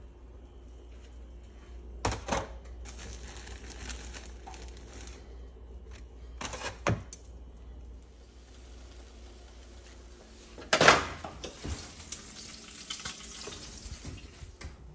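French toast sizzling in a hot pan, broken by several sharp clacks of metal tongs against the pan and bowl; the loudest clack comes just past the middle, followed by a longer stretch of sizzling.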